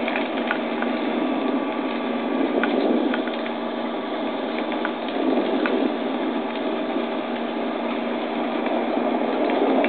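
Steady wind noise rushing over the camera microphone in flight under a parasail, with a few light ticks.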